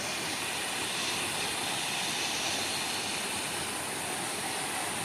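Steady rushing of a waterfall, an even hiss of falling water that does not change.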